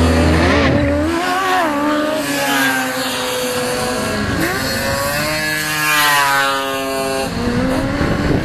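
Small single-seat racing buggy's engine revving and easing off repeatedly as it is driven round the track, the pitch rising and falling with each change of throttle. It swells and falls away more sharply as the buggy draws near.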